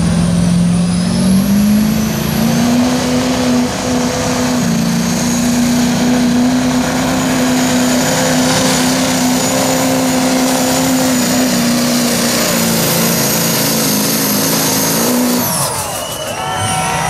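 Chevrolet Silverado's Duramax turbo-diesel pulling a sled at full throttle. The engine note rises over the first two seconds, then holds a steady high pitch with a high whine above it. About a second and a half before the end the engine drops off as the pull ends.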